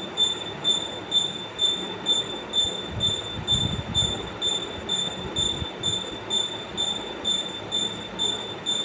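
A high-pitched squeal pulsing evenly about twice a second over a rough low rumble, like a spinning device squeaking once each turn.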